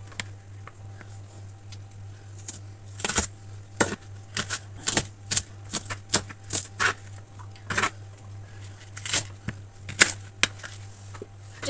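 Chef's knife slicing spring onions on a plastic cutting board: a run of irregular knocks of the blade on the board, starting a couple of seconds in, over a low steady hum.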